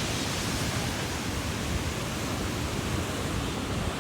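Steady wash of ocean surf with wind noise on the microphone, an even hiss with a low rumble and no distinct events.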